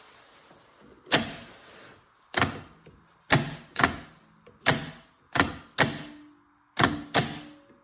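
Starter solenoid on a replacement John Deere 301A starter clacking about ten times at uneven intervals as it is jumped off a battery with jumper cables; each clack is sharp with a short ring. The solenoid is working, but the connection is too poor to spin the starter motor.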